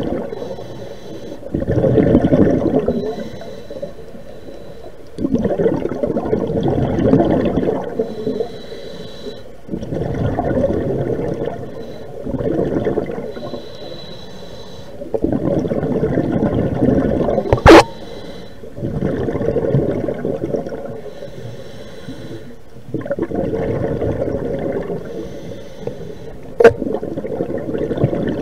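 Scuba diver breathing through a regulator underwater: a loud rush of exhaled bubbles every four to five seconds, alternating with quieter inhalations that carry a faint high hiss. Two sharp clicks, the loudest sounds, come in the second half.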